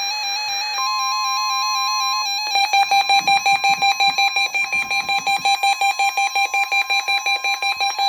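Emergency Alert System weekly-test alert: a steady 1050 Hz warning alarm tone starts about a second in. Under it runs a second, warbling electronic alarm tone, which switches to rapid beeping, about six beeps a second, about two and a half seconds in.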